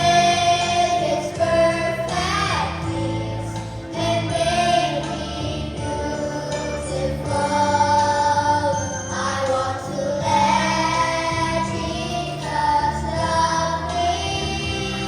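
A choir singing a song in unison over an instrumental backing track, with sustained sung notes and a steady bass line.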